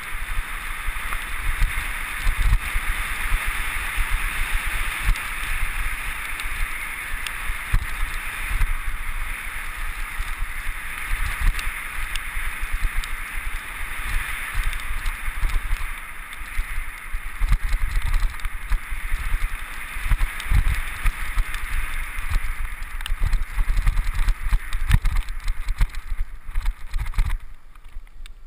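Wind rushing over a helmet-mounted camera's microphone as a mountain bike rolls down a grassy meadow trail, with irregular low thuds from bumps in the ground. The noise drops away sharply near the end.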